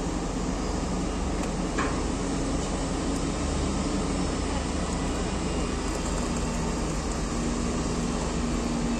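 Steady drone of idling heavy diesel engines: a low hum with a faint steady tone, and a brief click about two seconds in.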